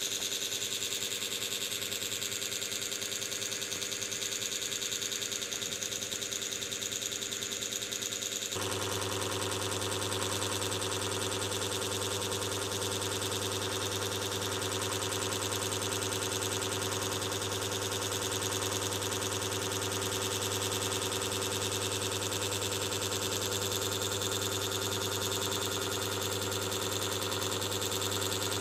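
Steady electrical hum with a high hiss and several fixed tones. Its tone changes abruptly about eight and a half seconds in, when a stronger low hum comes in.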